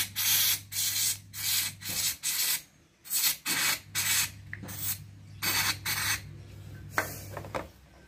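Aerosol can of carburettor cleaner sprayed in many short hissing bursts, one or two a second, onto a car engine part. The spraying thins out near the end, with a single click about seven seconds in.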